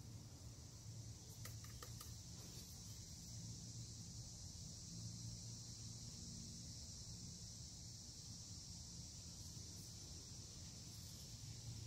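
Faint, steady high-pitched insect buzz, with a few light clicks about one and a half seconds in.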